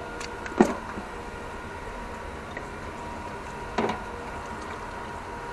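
Two short knocks, the first about half a second in and louder, the second near four seconds, as a clear plastic bottle and a thin drain tube are handled under the car to take an automatic-transmission fluid sample. A steady hum runs underneath.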